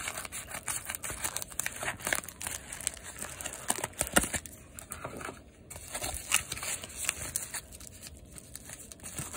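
Plastic bubble mailer crinkling as it is handled and slit open along its edge, a run of irregular crackles and scrapes.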